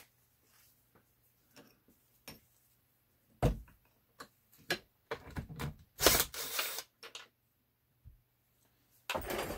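Metal tools and gearbox parts being handled on a workbench: scattered light clicks and taps, a sharp knock about three and a half seconds in, and a cluster of knocks with a brief noisy rasp about six seconds in.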